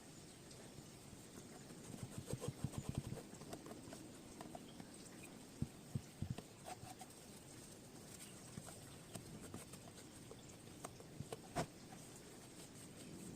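Faint, irregular light taps and knocks, with a cluster about two seconds in, a few more around six seconds, and a single sharper click near the end.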